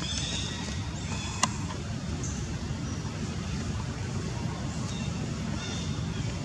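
Steady low outdoor rumble, with a few faint high chirps and one sharp click about one and a half seconds in.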